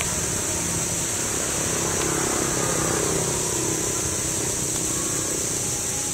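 Steady outdoor background noise: a continuous high hiss over a low rumble, with a faint engine-like hum that swells slightly a couple of seconds in.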